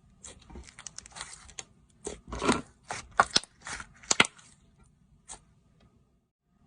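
Slime being squeezed and pressed by hand: a run of short crackling, popping squishes with a few sharp snaps, busiest and loudest in the middle, then one last pop.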